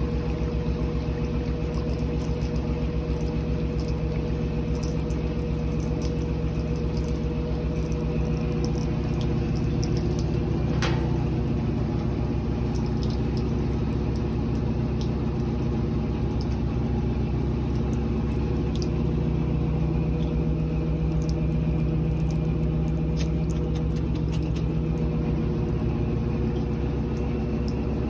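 Electric motor running at a steady speed with a constant hum, and a single sharp click about eleven seconds in.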